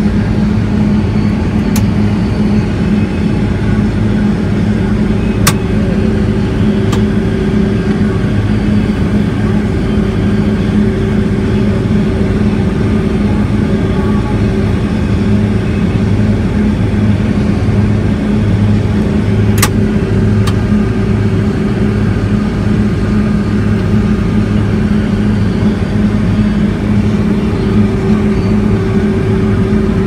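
New Holland combine harvester running steadily with its unloading auger on, emptying soybeans into a grain wagon, heard from inside the cab as a steady drone. A few brief clicks stand out over it.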